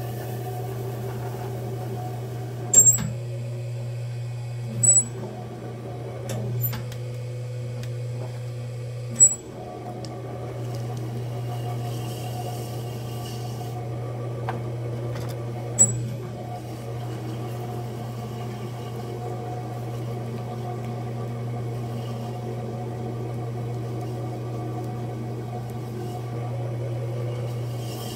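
Electric pottery wheel's motor humming steadily as the wheel head spins, while wet clay is coned up and down under the hands. Four sharp clicks stand out over the hum.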